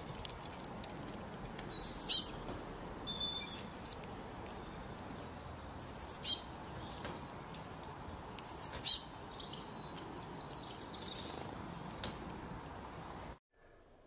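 A small songbird gives short runs of four or five quick, high chirps three times, with a few softer calls in between, over a steady faint outdoor hiss. The sound cuts off suddenly shortly before the end.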